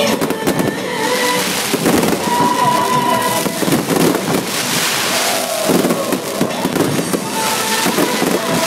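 Aerial firework shells bursting overhead in a rapid, continuous barrage of bangs and crackling.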